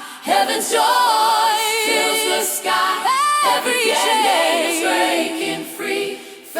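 Music: wordless singing by voices with no bass or drums, holding long wavering notes and gliding between them.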